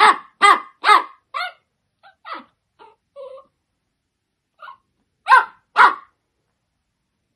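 Dachshund barking in short, sharp yaps: four in quick succession, a few fainter yips, then two loud barks near the end.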